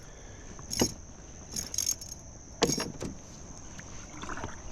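Several short knocks and rattles of gear being handled in a kayak, the loudest a little under three seconds in, over a steady high buzz of insects.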